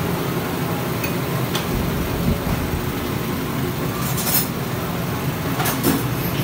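A few light metallic clinks and taps of a hand tool and metal parts, the loudest cluster about four seconds in and another just before six seconds. A steady low hum of workshop noise runs underneath.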